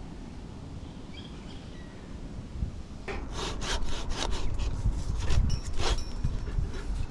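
Hand pruning saw cutting through a tree branch in quick back-and-forth strokes, starting about three seconds in, about three strokes a second.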